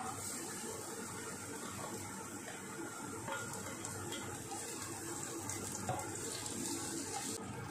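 Chopped garlic and onion sizzling in hot oil in a frying pan: a steady hiss that starts as they are tipped in and thins near the end, with a few light knocks of a spatula against the pan.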